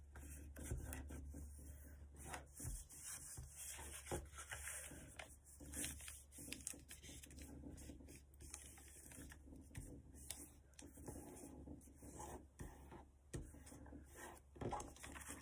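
A sheet of notebook paper being folded and creased by hand: faint, irregular rustling and rubbing as the folds are pressed flat.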